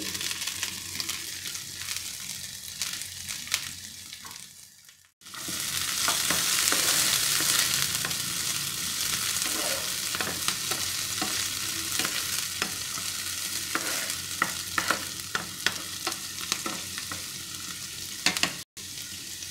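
Chopped carrots, French beans and onion sizzling in oil in a frying pan while a wooden spatula stirs them and scrapes the pan. The sizzle fades and breaks off about five seconds in, then comes back louder, with repeated spatula scrapes through the second half.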